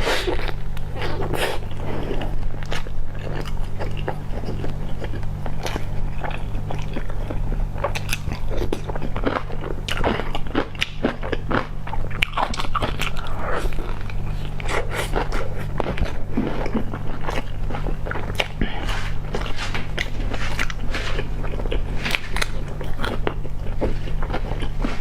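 Close-miked eating: repeated bites and wet chewing with frequent crunches, over a steady low hum.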